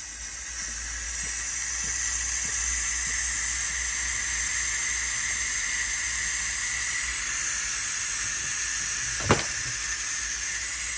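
Ninja Foodi pressure cooker at pressure, venting steam from its lid in a steady hiss that builds over the first couple of seconds and then holds; a single sharp click about nine seconds in.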